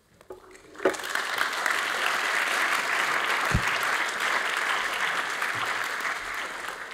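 Audience applauding, starting about a second in and dying away near the end, with a single low thump partway through.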